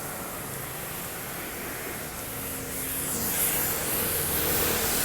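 Steady hissing background noise that swells louder about three seconds in.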